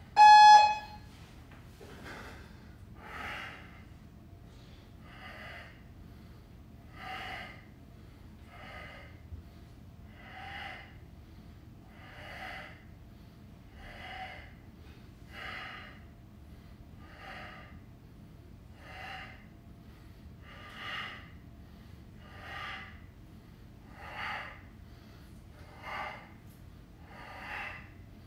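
An interval timer gives one short, loud electronic beep at the start. Then a man breathes out in short, sharp, rhythmic puffs, about one a second, as he works through kettlebell 'marching bug' core reps.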